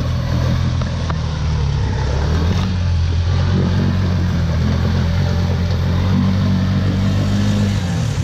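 ATV engine running at low revs, its pitch lifting a little in the middle and dropping just before the end.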